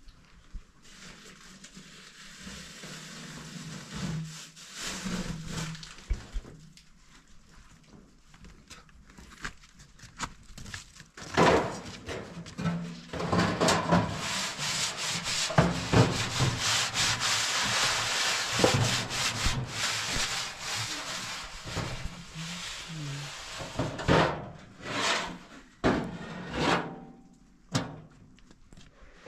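Rough scraping and rubbing on a hard surface, faint at first, then loud and continuous from about eleven seconds in, breaking into a few separate strokes near the end.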